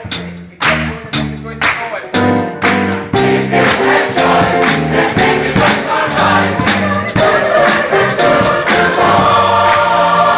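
Gospel choir singing with a live band, drums and bass keeping a steady beat. The voices hold a long chord near the end.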